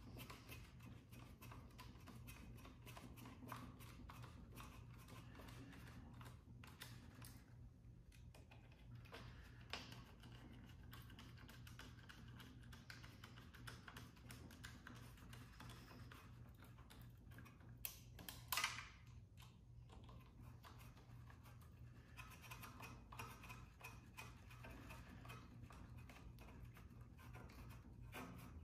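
Faint clicks and scrapes of small metal parts being handled and screws driven with a small screwdriver while fitting an extruder to a 3D printer frame, over a low steady hum. One short, louder scrape comes about two-thirds of the way through.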